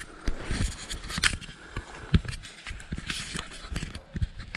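Footsteps through deep, dry fallen leaves: an irregular run of crackling, rustling steps with low thumps from the feet landing.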